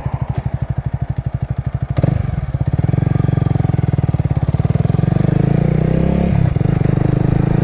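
Motorcycle engine running with a regular pulsing beat. About two seconds in it becomes louder and faster as the bike pulls along, with a brief break in the sound just past six seconds.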